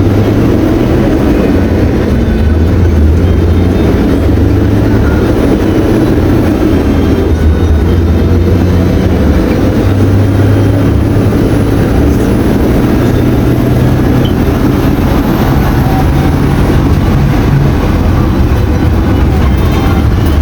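Volkswagen 17-210OD city bus's MWM 6.10 TCA six-cylinder engine, converted to run on natural gas, running under way with a loud, steady low drone. Its pitch shifts a couple of times as the bus pulls.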